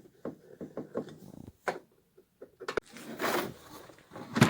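Hand-tool work on scooter bolts and body parts: a run of small irregular metal clicks and rubs from a wrench, then a scrape and a sharp knock near the end.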